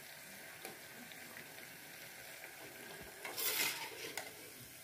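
Wheat-flour bajjis deep-frying in hot oil in a steel kadai, a faint steady sizzle, with a slotted steel ladle stirring and clinking in the pan. A little after three seconds in the sizzle and scraping briefly get louder as the ladle scoops up the fried fritters.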